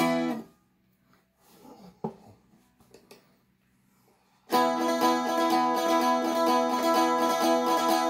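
Seagull Merlin M4 strumstick strummed with a pick. A single strum sounds at the start, followed by a few faint taps and handling noises. Steady rhythmic strumming of chords begins about four and a half seconds in.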